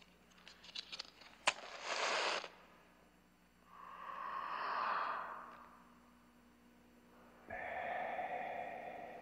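A few small clicks and rattles, then a match struck with a sharp click and flaring into a short hiss about a second and a half in. A swelling and fading whoosh follows, and near the end a steady droning tone starts suddenly.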